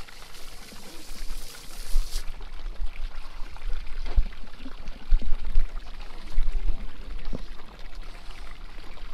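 Water pouring and splashing for about the first two seconds, stopping sharply, then a low rumble with a few short knocks against the boat.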